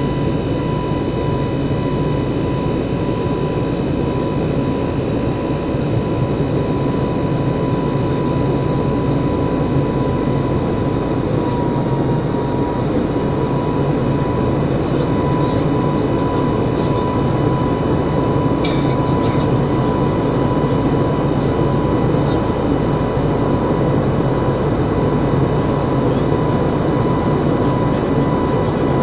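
Airbus A320neo with CFM LEAP-1A turbofans in flight, heard from inside the cabin: a steady rumble of engine and airflow with a steady high whine over it. A brief click sounds about two-thirds of the way through.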